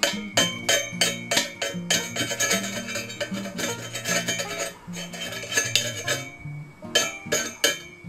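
Music with a quick, steady beat of sharp metallic strokes like a cowbell, about three a second, over a stepping bass line.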